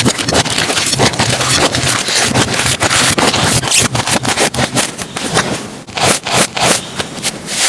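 Slime being squeezed and worked by hand: a dense, irregular run of sticky crackles, pops and squelches.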